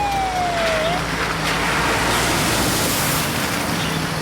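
Police car siren winding down, its single tone falling in pitch and cutting off about a second in, followed by a car engine's steady hum under a rushing noise.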